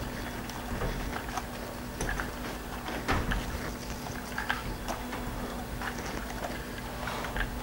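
Irregular small clicks, knocks and rustles of hands gripping and turning the plastic body of a Cheerson CX-20 quadcopter.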